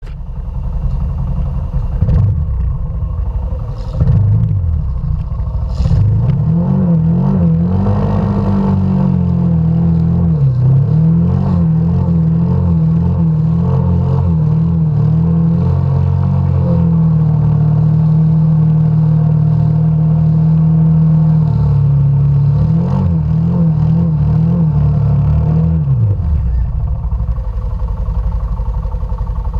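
Arctic Cat Mud Pro ATV engine revving up and down under load while the quad is towed out of deep mud, held at a steady high rev for a few seconds in the middle before dropping off near the end. A low rumble with a few knocks comes before the revving starts.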